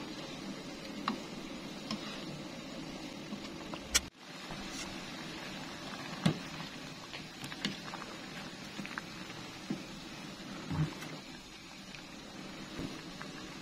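Water boiling with chunks of wax gourd in it, a steady bubbling, with scattered taps and knocks from the pieces being stirred with a spatula and then a metal ladle in an aluminium pot.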